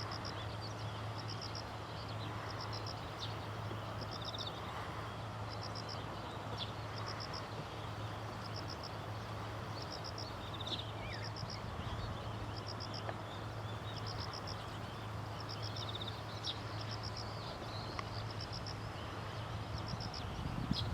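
Outdoor ambience: short high chirps, each a quick group of three or four pulses, repeat about once a second with occasional pauses, over a steady low hum.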